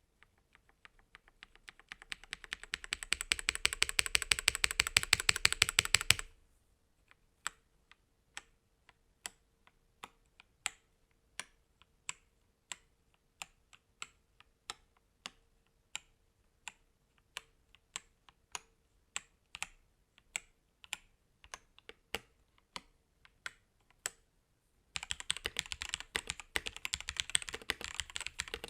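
Attack Shark K86 gasket-mounted mechanical keyboard being typed on: a fast, dense run of keystrokes for about six seconds, then single key presses about one a second, then fast typing again near the end.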